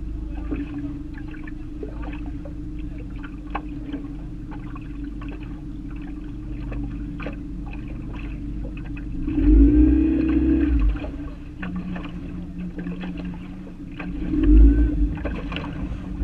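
A boat motor running with a steady low hum, with scattered light clicks and taps. Two louder swells of low rumbling noise come about ten seconds in and again near fifteen seconds.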